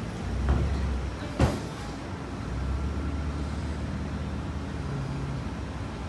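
Walk-in cooler condensing unit running with a steady low hum, one condenser fan motor standing still, which the technician takes for a dead motor. A sharp knock about a second and a half in, with a smaller one just before.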